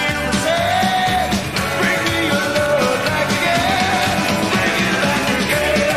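Rockabilly band playing live: electric guitar, upright double bass and drums at a driving beat, with a shouted, sung lead vocal.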